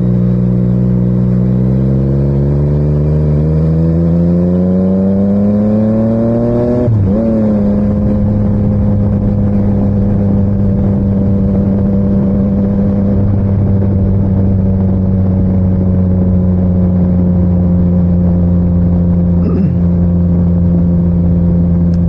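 Motorcycle engine heard from inside the rider's helmet, with wind rumble: the engine note climbs steadily as it accelerates in one gear, drops sharply on an upshift about seven seconds in, then holds a nearly steady cruising pitch, sinking slowly.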